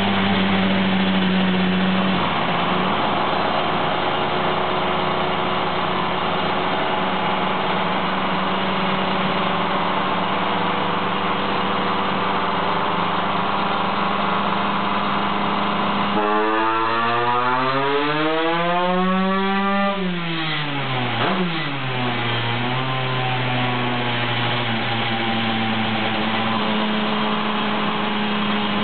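Stock Honda CR125 125cc two-stroke single in a shifter kart, running steadily on a chassis dyno. A little past halfway it revs up in one smooth climb for about three seconds, a full-throttle dyno pull, then the revs drop away quickly and it settles back to a steady run.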